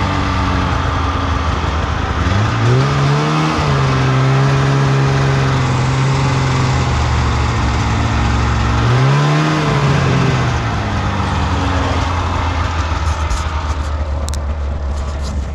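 A vehicle engine running under way, its pitch rising twice as it speeds up, about two and a half seconds in and again about nine seconds in, then holding steady. A few sharp clicks come near the end.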